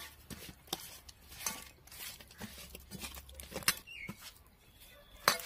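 Raw rohu fish steaks being rubbed and turned by hand with salt and turmeric in a steel plate: irregular soft clicks and taps as the pieces are handled against the metal, with a sharper click near the end.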